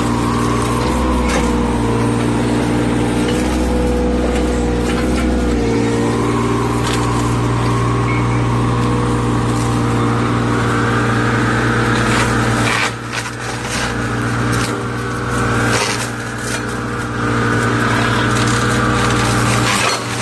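Excavator running with its cutter attachment: a steady engine drone under a higher whine that rises and falls. About two-thirds of the way in, the sound dips briefly several times.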